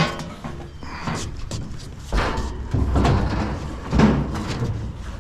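A few heavy knocks and thuds of scrap being handled and set down: one at the start, then others about two, three and four seconds in.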